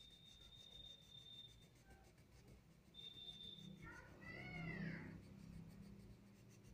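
A cat meows once, about four seconds in: a single drawn-out call that rises and then falls in pitch.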